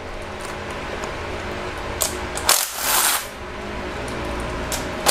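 Hand ratchet with extension and socket loosening the bolts of an engine's timing chain guide: clicking, with short bursts of ratcheting about two seconds in and again around three seconds in.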